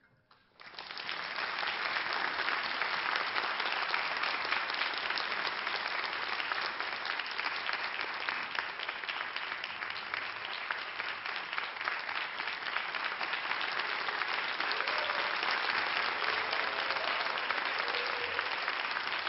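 Concert audience applauding: clapping breaks out suddenly about half a second in and continues steadily.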